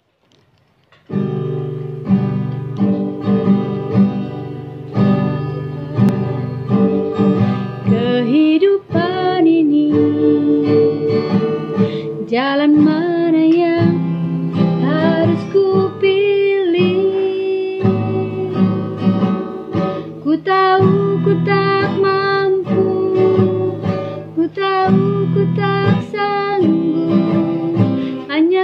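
Acoustic guitar strummed in a steady rhythm, with a woman's voice singing a melody over it from about eight seconds in.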